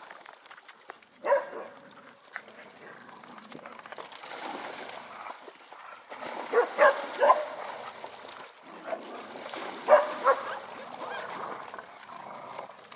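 Several dogs barking in short bursts while they play: one bark about a second in, three quick barks in the middle, and two more near the end, with water splashing in between.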